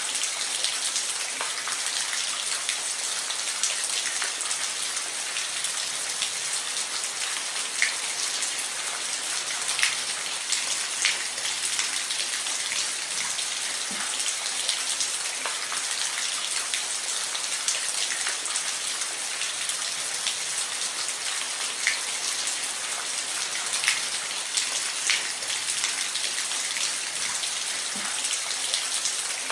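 Steady rain falling on a roof: an even hiss with individual drops ticking through it.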